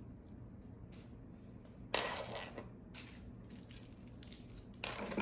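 Plastic toy wrapping crinkling as it is handled and unwrapped, in three short bursts.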